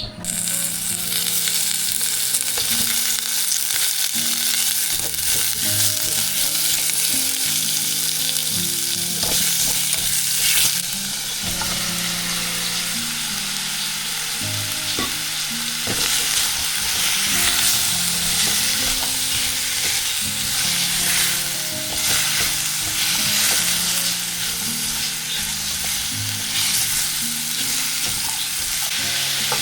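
Food frying and sizzling in a pan with a steady hiss, with occasional scraping and clicks from stirring.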